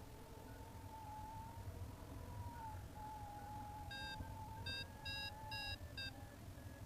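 Paragliding variometer beeping: a run of about five short, quick beeps in the middle, the kind a vario gives when the glider climbs in lift. Under it run a steady, slowly wavering tone and a low rumble.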